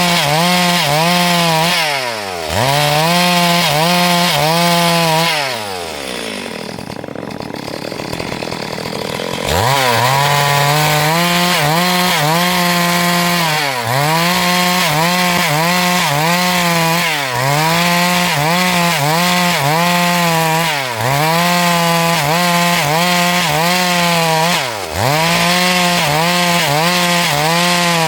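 Two-stroke chainsaw running at high revs while ripping lengthwise through a log, the engine dipping and picking back up every three to four seconds. About six seconds in it drops back to idle for a few seconds, then revs up again and carries on cutting.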